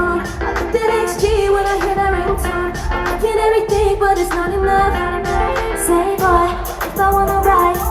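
Live pop song with female vocals and a heavy bass beat, played over an arena's sound system and recorded from the crowd.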